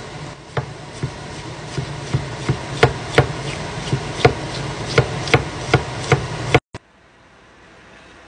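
Knife chopping pickles on a wooden cutting board: sharp knocks of the blade on the board, about two a second, over a steady low hum. The chopping cuts off abruptly about two thirds of the way through, leaving a quieter stretch.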